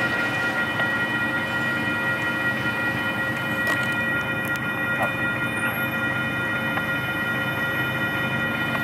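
Railroad crossing warning bell ringing steadily while the crossing is activated and the gates are lowering, over the rumble of road traffic.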